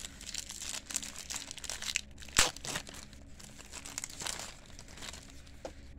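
Wrapper of a 1988 Score baseball card pack crinkling and tearing as it is pulled open by hand, with one sharper, louder crackle about two and a half seconds in.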